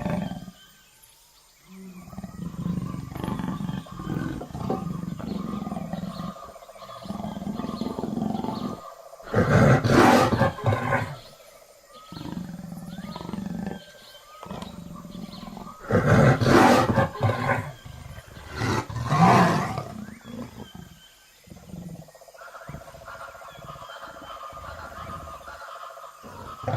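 Tiger growls and roars, most likely a recorded sound effect: a low rumbling growl goes on throughout, with three loud roars about ten, sixteen and a half, and nineteen and a half seconds in.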